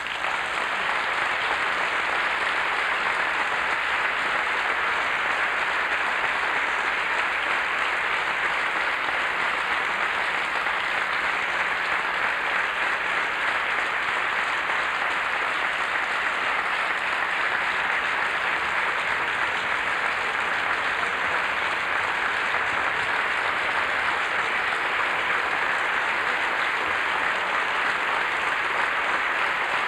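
Large audience applauding steadily, the clapping merged into one even, unbroken ovation.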